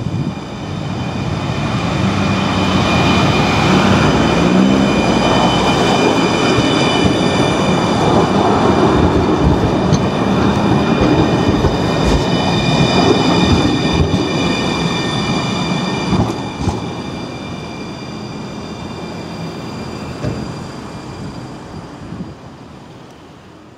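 A low-floor electric tram passes close by. Its rolling rumble builds over the first few seconds, stays loud to past the middle, then fades as it moves away. A steady high-pitched whine runs through it, with a few metallic clanks from the wheels on the rails.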